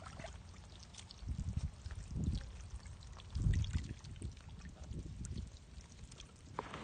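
Fish wriggling in shallow muddy water: wet splashing and squelching with small crackles, and a few heavier sloshes, the loudest about halfway through.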